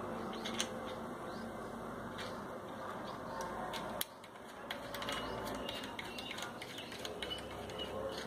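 Small clicks and ticks of fingers handling a rotary mini grinder's brass collet and collet nut while they are fitted and screwed onto the tool's nose, the motor off, over a steady background hiss. The sharpest click comes about four seconds in, with a run of lighter ticks after it.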